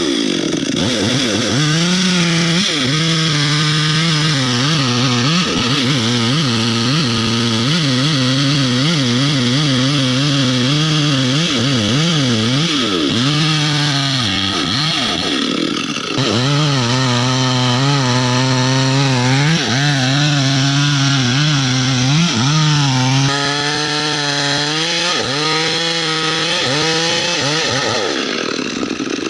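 Chainsaw running hard while felling a mahogany tree, its engine pitch wavering up and down over and over as the chain works in the wood. It eases off briefly about halfway through and drops away near the end.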